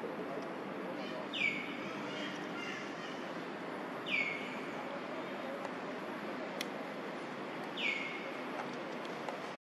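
Three short high calls, each sliding down in pitch, about three seconds apart, over a steady background hiss. A single sharp click comes about two-thirds of the way through.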